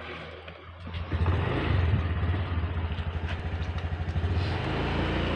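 Honda Beat scooter's small single-cylinder engine running with an even low pulse, louder from about a second in, then taking on a fuller, higher note near the end as the scooter pulls away.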